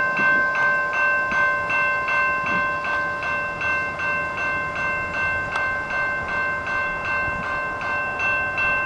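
Railway level-crossing warning bell ringing continuously at the crossing, about three strikes a second, each strike ringing on with steady metallic tones, which signals that the crossing gates are down for an approaching train.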